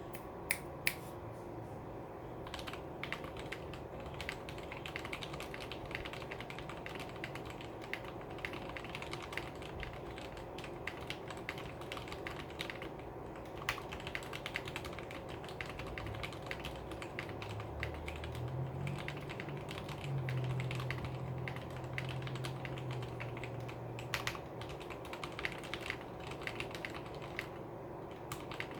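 Typing on a Tecware Phantom mechanical keyboard with Outemu Red linear switches, the switches lubed with Krytox and the stabilizers clipped and lubed: a continuous, uneven run of key presses.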